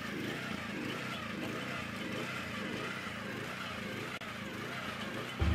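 Small petrol engine of a walk-behind garden cultivator running steadily as it works over the soil. Just before the end, music cuts in suddenly.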